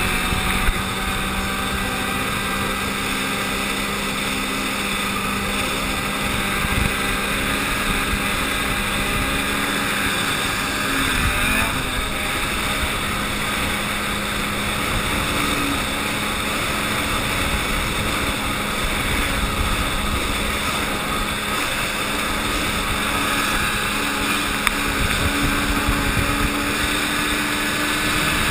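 Ski-Doo snowmobile engine running steadily at cruising speed as the sled travels across snow-covered lake ice.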